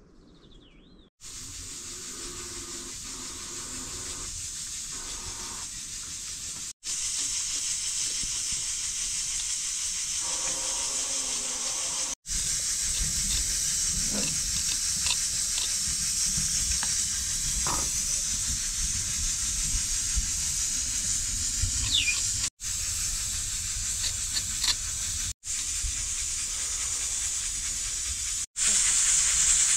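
Food cooking in a pot hisses steadily, with a few faint ticks. The sound starts about a second in and drops out briefly several times.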